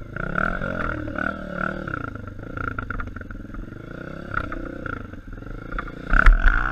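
Honda dirt bike engine revving up and down, its pitch rising and falling with the throttle. About six seconds in there is a loud splash as the bike drives into the river.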